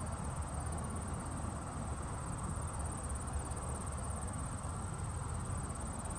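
Steady outdoor background: a low rumble with a continuous high, fast-pulsing buzz over it.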